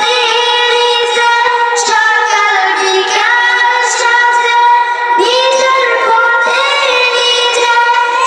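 A young girl singing a Bangla gojol (Islamic devotional song) solo into a handheld microphone, in a flowing melody with long held notes and short breaths between phrases.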